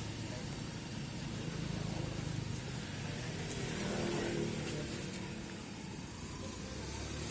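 A motor engine running with a steady low rumble.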